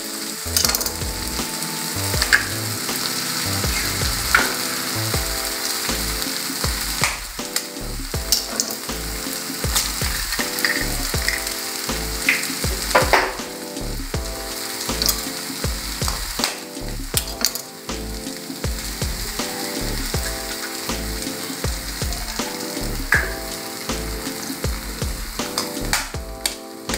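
Onion and tomato sizzling in butter in a frying pan while eggs are cracked into it, with a few sharp clicks of eggshells breaking.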